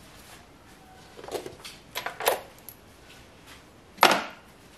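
Hand tools and bolts being handled: a few light metallic clinks and clatters, then a sharper knock about four seconds in.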